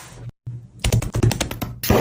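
Background music with a rapid run of sharp clicks or taps in the second half.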